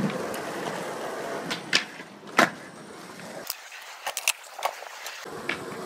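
Skateboard wheels rolling on concrete with a steady rush, broken by sharp clacks of the board, the loudest about two and a half seconds in. After that comes a quieter stretch with a few scattered clacks.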